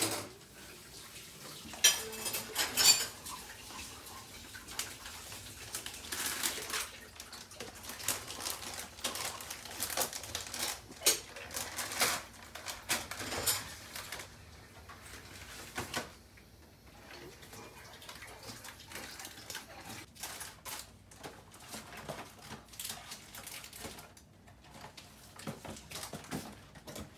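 Dishes and cutlery clattering at a kitchen sink: irregular clinks and knocks of plates and utensils being handled.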